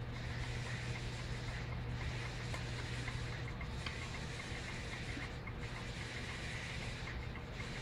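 Steady low hum with an even hiss: background noise of lab equipment and ventilation. The upper hiss dips briefly about every two seconds, with a few faint ticks.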